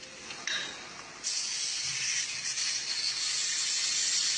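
A short knock, then a steady loud hiss that starts about a second in and keeps going.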